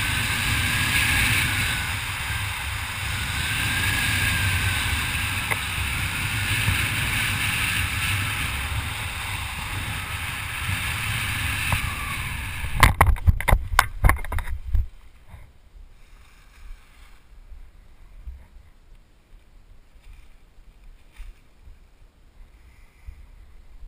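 Airflow rushing over the skydiver's camera microphone during a parachute canopy descent, with a faint wavering whistle now and then. About thirteen seconds in, a cluster of thumps and scuffs as the skydiver touches down on the grass and slides to a stop.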